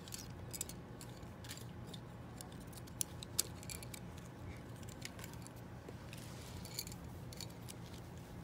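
Loose wooden popsicle sticks clicking and clattering lightly against each other as they are picked up and set down, with two sharper clicks about three seconds in.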